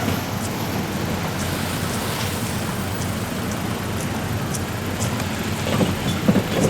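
Steady road traffic noise at a railway level crossing, with a few low thuds near the end.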